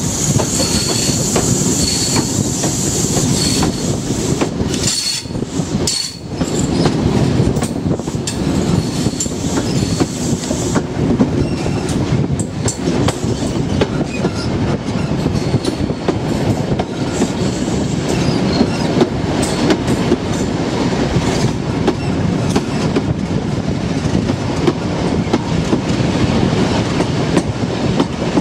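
Mark 3 coaches of an InterCity 125 (HST) train on the move, heard from an open coach window: a steady rumble of wheels on rail with occasional clicks over rail joints, and a thin high wheel squeal in the first few seconds.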